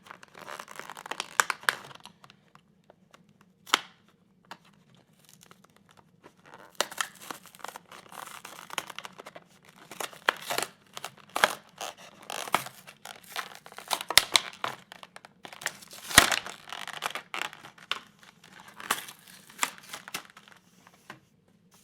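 Toy packaging being torn open and crinkled by hand: irregular rips and crackles with sharp snaps, the loudest about two thirds of the way through.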